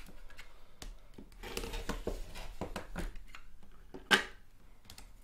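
Light rustling and small taps of hands working satin fabric and a plastic ruler on a cutting mat, then one sharp knock about four seconds in as a plastic rotary cutter is set down on the wooden table.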